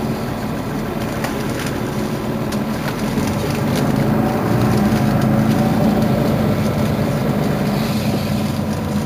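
Mercedes-Benz Citaro Facelift city bus's diesel engine idling steadily at a stop, heard from behind the bus, growing somewhat louder from about four seconds in.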